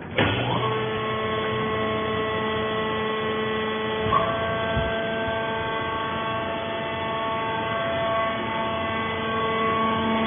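Fiber baler's hydraulic pump motor starting with a quick rising whine, then running with a steady hum. About four seconds in its tone shifts with a knock, and it winds down at the end.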